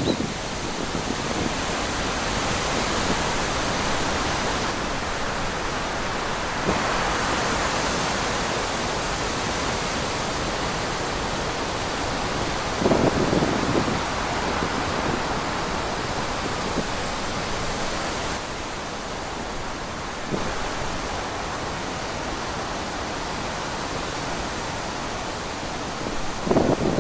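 Steady wind, an even noise with no pitch, swelling briefly about halfway through and again near the end.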